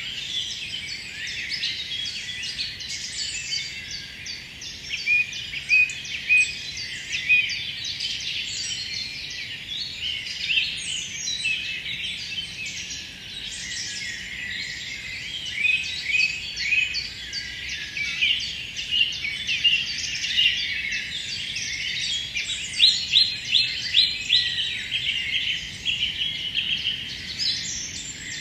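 Forest songbirds singing together in a dense, continuous chorus of overlapping chirps and trills, with a run of louder, sharper notes about four-fifths of the way through.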